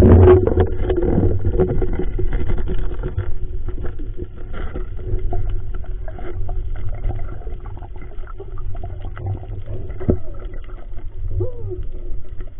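Underwater sound picked up by a camera in its waterproof housing while a fish is handled on a spear shaft: a muffled, steady low rumble of water movement with scattered clicks and knocks, loudest in the first moment.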